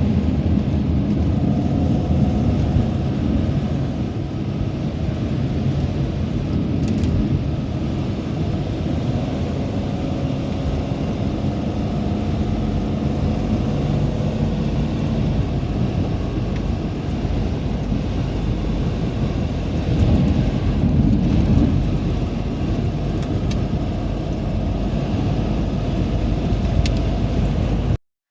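Sprinter cargo van driving at highway speed, heard from inside the cab: steady engine, tyre and wind noise. It cuts off suddenly near the end.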